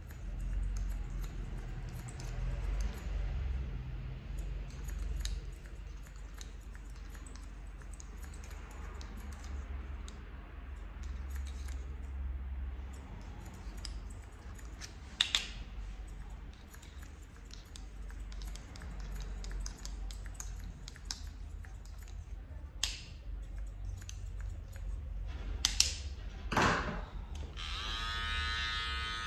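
Barber's scissors snipping hair cut over a comb, a long run of quick small snips with a few sharper clicks. Near the end a small detailing clipper switches on and buzzes steadily.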